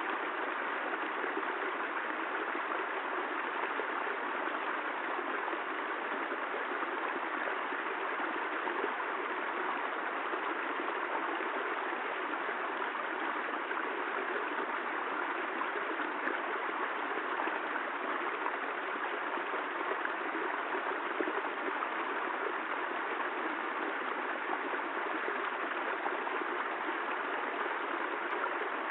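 Steady rainfall, an even rushing hiss with no separate drops or thunder standing out.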